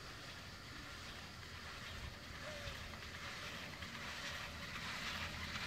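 Steady rumble and hiss of a chairlift ride: the haul cable running over a tower's sheave wheels as the chair passes the tower, growing gradually louder.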